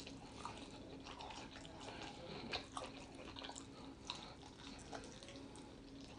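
Faint chewing, biting and lip smacking of a person eating a barbecue chicken wing off the bone, heard as scattered small irregular clicks.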